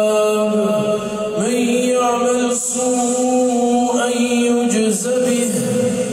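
A male imam reciting the Quran in a slow, melodic chant, holding long notes and sliding between pitches.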